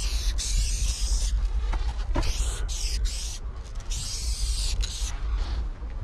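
Aerosol spray-paint can hissing in bursts as paint goes onto the wall: a long spray through the first second, several short bursts around two to three seconds in, another long spray around four to five seconds, and a fainter one near the end. A constant low rumble runs underneath.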